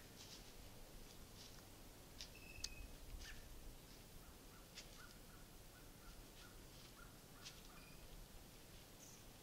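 Quiet winter woods with faint, scattered bird chirps and short calls, including a run of soft short notes about two a second in the middle, over light ticks and rustles in dry leaf litter.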